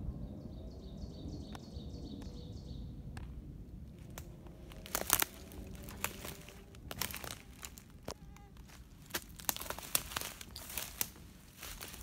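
A small bird gives a rapid run of high repeated notes, about five a second, for roughly three seconds. Then footsteps crunch and crackle through dry leaf litter and twigs on the forest floor.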